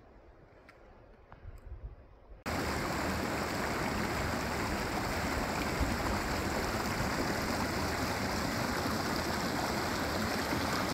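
Steady rushing of running water, cutting in abruptly about two and a half seconds in after a quiet stretch with a few faint clicks.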